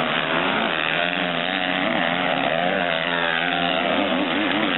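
Several motocross bikes' engines revving hard under racing load, their pitch rising and falling with throttle and gear changes.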